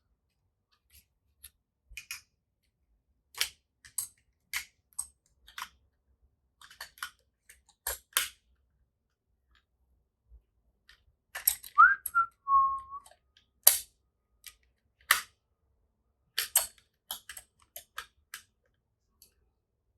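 Scattered sharp metallic clicks and clacks of a Zeiss Contaflex 35 mm camera being handled while its detachable film back is worked back into place. About twelve seconds in there is a brief high whistle-like squeak.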